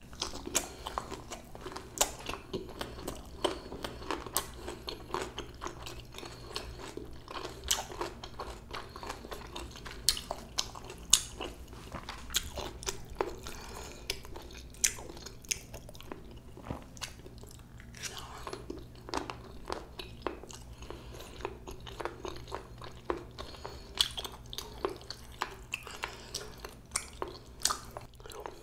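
A person chewing food close to the microphone, with frequent sharp crunches and clicks.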